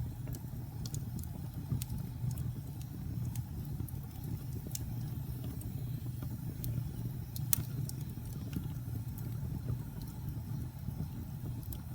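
Wood fire crackling: scattered sharp pops over a steady low rumble, one louder pop a little past halfway.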